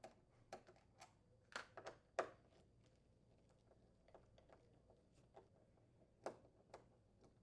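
Faint, scattered metallic clicks of a 5/16" nut driver working the two screws out of a refrigerator's upper freezer door hinge: several in the first two seconds, the loudest about two seconds in, then a few more near the end.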